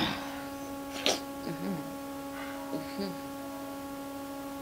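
Steady electrical hum on the microphone line, with a tearful woman's sharp sniff about a second in and a few faint, short murmurs of her voice after it.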